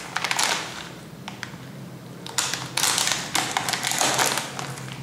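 Crinkling and crackling of a plastic bubble-wrap bag being handled and lifted from a cardboard box: a short spell at first, then a louder, longer one from about two and a half seconds in.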